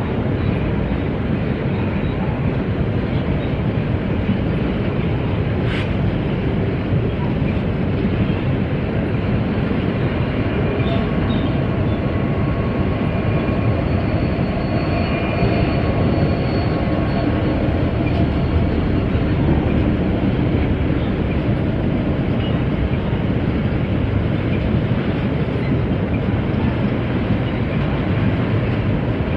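Freight train rolling past with a steady, loud rumble of wheels on rails, and a faint high squeal about halfway through.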